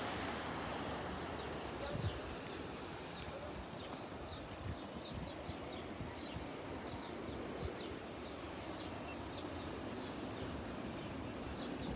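Small birds chirping, short high notes repeated over and over, against a steady hiss of wind and distant surf. The chirping starts about two seconds in.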